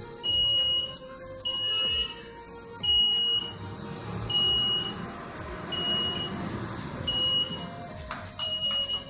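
Electronic buzzer of a homemade panipuri vending machine beeping at an even pace: seven short, high beeps about one and a half seconds apart, sounding after its enter button has been pressed. Background music plays underneath.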